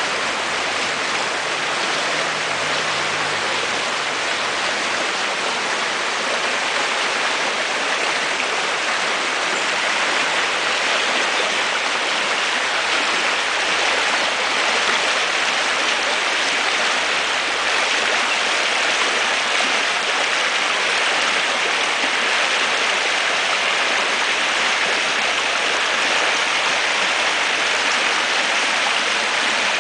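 A creek in flood, its fast water rushing steadily with an even, unbroken hiss.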